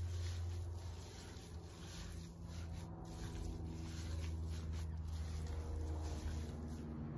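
Gloved hand squeezing and kneading raw minced pork with its seasonings in a dish: soft, irregular squishing and rubbing of the plastic glove in the meat, over a low steady hum.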